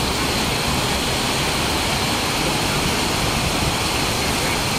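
Heavy tropical rain pouring onto a paved street, a dense, steady hiss, mixed with the tyres of vehicles driving through water on the road.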